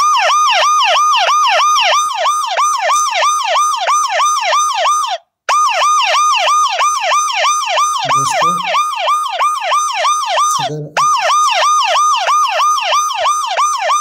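Recorded ambulance siren played from an MP3 file on an Android phone, a fast yelp of rising-and-falling sweeps about three and a half times a second. It breaks off briefly twice where the looped file starts over.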